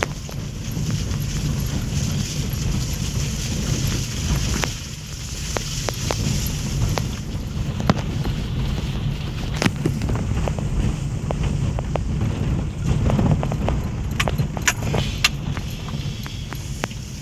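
Car driving over a bumpy dirt track, heard from inside the cabin: a steady low rumble of engine and tyres, with scattered clicks and rattles as the car jolts over ruts, a cluster of them near the end.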